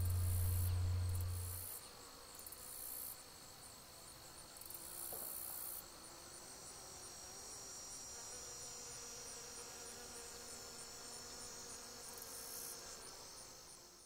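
Faint outdoor insect chorus: crickets chirping in a steady even rhythm, with high trills that start and stop every second or two. A steady low hum runs at the start and stops about a second and a half in.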